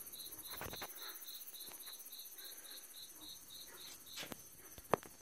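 A cricket chirping at an even pace, about three chirps a second, falling silent near the end, with a few soft knocks and one sharp click.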